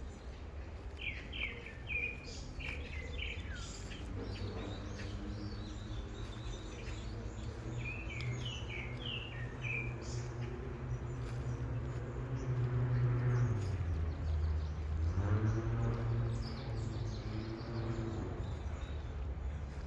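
Songbirds singing short chirping phrases in two bouts, near the start and again around the middle. From about four seconds in, a low droning hum with several steady tones runs underneath; it dips and rises again in pitch past the middle, where it is loudest.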